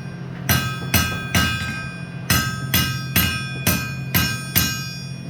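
Blacksmith's hammer striking steel on an anvil, about two blows a second with a short pause near the start, each blow ringing out, over a steady low hum.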